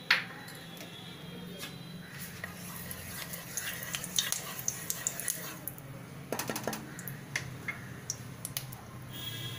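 Wooden spatula knocking and scraping around a nonstick kadai as refined oil heats in it: one sharp knock at the very start, then scattered light ticks and taps, with a few louder strokes about six and a half seconds in, over a steady low hum.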